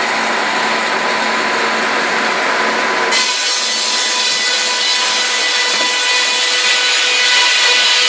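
Sawmill breast-bench circular saw cutting pine timber. The spinning blade runs with a steady hum of a few tones, then about three seconds in it bites into the beam and a loud, bright rasp of sawing takes over as it cuts along the wood.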